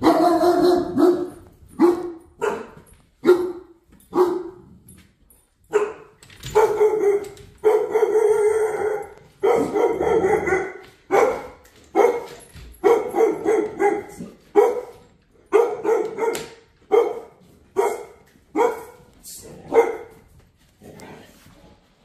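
Dog barking repeatedly: a run of about twenty barks, some of them longer and drawn out in the middle, growing fainter near the end.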